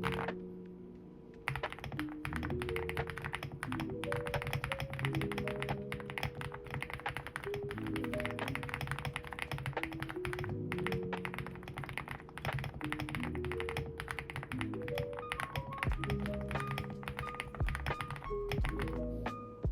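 Fast, steady typing on a mechanical keyboard with Dangkeebs Taro N Sweet Potato linear switches, Drop Skylight keycaps and an Epomaker x Aula F75 case, starting about a second and a half in. Background music plays underneath.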